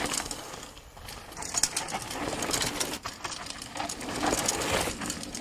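Mountain bike ridden hard through dirt trail turns: tyres crunching and skidding on loose dry dirt and stones, with a rapid mechanical rattle from the bike. Loud at the start, dipping about a second in, then building again.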